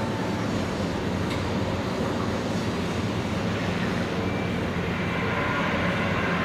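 Steady low engine drone with an even hum underneath, holding at one level throughout.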